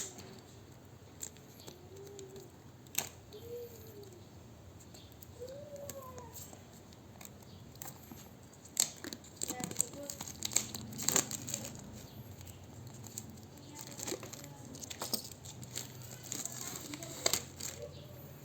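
Crinkling and tearing of packaging being opened by hand, with sharp clicks and rustling that grow busier about halfway through.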